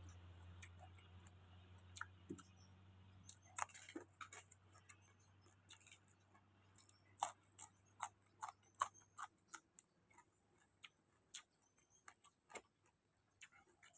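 Faint, irregular sharp clicks, a few a second, over a low hum that fades out within the first few seconds.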